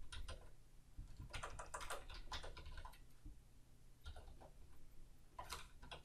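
Faint computer keyboard typing: a few short runs of keystrokes with quiet pauses between them.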